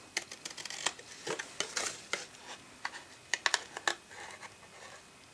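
Small scissors snipping kraft cardstock: a run of short, sharp, irregularly spaced snips and clicks as the flaps are cut off.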